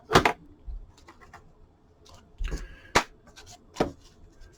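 A few sharp clicks and taps from cards and card holders being handled on a table, with a brief squeak about halfway through.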